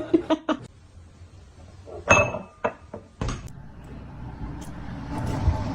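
A sharp clink with a brief ringing tone about two seconds in, followed by a few smaller knocks and a low rustling noise.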